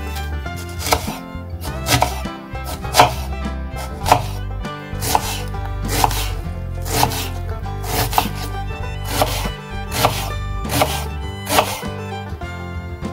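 Kitchen knife dicing an onion on a wooden cutting board: sharp knocks of the blade on the board, about one a second and sometimes two close together, over background music.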